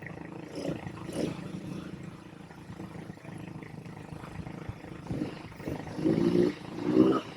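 ATV engine idling with several short throttle revs, the strongest two about six and seven seconds in.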